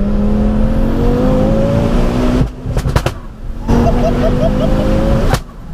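Turbocharged 2.5-litre five-cylinder engine of a heavily modified Ford Focus RS, heard from inside the cabin, pulling hard under full throttle. The revs climb steadily and drop at a gear change about two and a half seconds in, with a couple of sharp cracks. They climb again from lower revs, and another crack and gear change come near the end.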